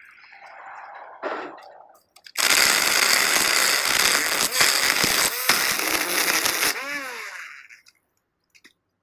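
String trimmer (weed eater) revved up hard for about four seconds, then let off and winding down, with the pitch sliding as it slows.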